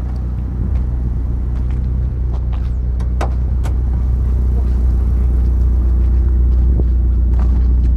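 A car engine idling steadily nearby: a low, even drone that grows slightly louder, with a few faint clicks.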